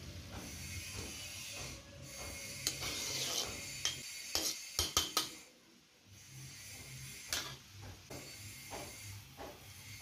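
A long metal spoon stirring a simmering stew in a large metal wok, scraping and clinking against the pan, with a quick run of sharp clinks about four to five seconds in. A steady hiss runs underneath.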